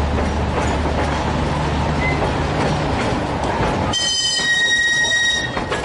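Carriages of a narrow-gauge children's railway rolling along the track with a steady rumble and rattle. From about four seconds in, a high, several-toned wheel squeal lasts about a second and a half as the train rounds a curve.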